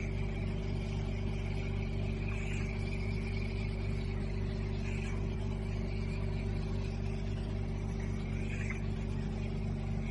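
A VelaShape body-contouring machine running: a steady motor hum with a higher whine that swells about every two and a half seconds.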